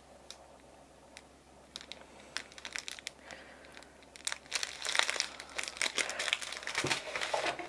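Cellophane wrap crinkling as a plastic-wrapped strip of diamond painting drill bags is handled. A few scattered crackles at first, growing busier from about halfway through.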